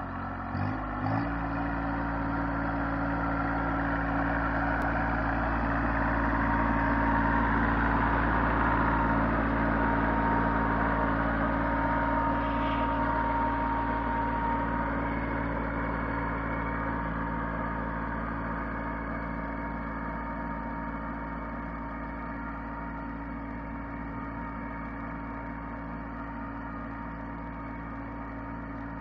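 Kubota B2320 compact tractor's three-cylinder diesel engine running steadily under load while pulling a row cultivator through the soil. It grows louder as it comes close and then slowly fades as it moves away.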